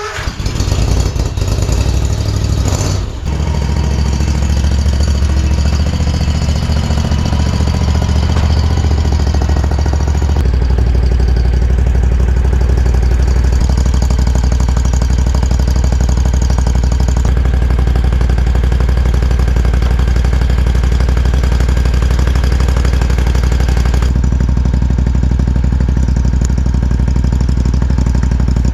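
Small engine of a zero-turn mower running steadily just after being started, with a brief dip about three seconds in and a deeper, heavier note from about ten seconds in.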